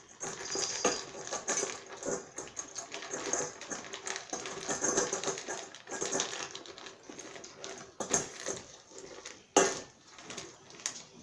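A pit bull puppy eating dry kibble from a stainless steel bowl: irregular crunching and kibble rattling against the metal as a stick is pushed into the bowl. A sharper clank near the end.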